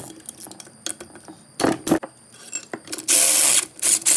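A few sharp metal clicks, then two short bursts of a power ratchet spinning out crankcase bolts on a Subaru EJ25 engine block.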